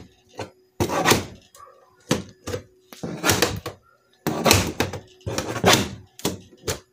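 Needle-nose pliers prying at the metal clasps on the edge of a plywood shipping crate: a run of sharp knocks and metallic scrapes, with the wooden box thunking, the clasps hard to work loose.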